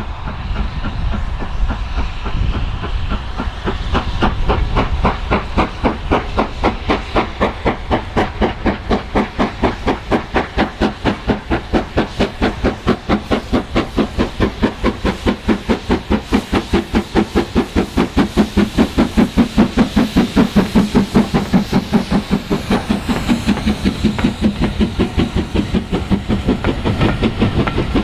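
Steam locomotive pulling away with a train of coaches. Its exhaust beats come a few seconds in and quicken as it gathers speed, over a steady hiss of steam. Near the end the coaches roll past with a rhythmic clatter.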